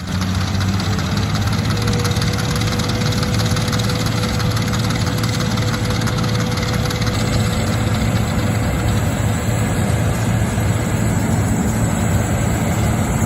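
Allis-Chalmers combine harvester running steadily while cutting wheat, a loud even engine and machinery drone, with a thin steady whine joining about a second and a half in.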